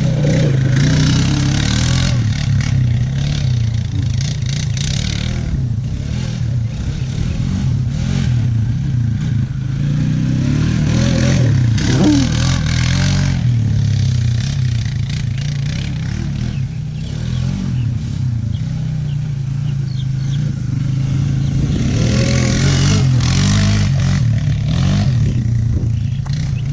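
2008 Honda Rancher ATV's single-cylinder four-stroke engine running as the quad is ridden hard, revving up and easing off, with rushing, clattering noise from the ride.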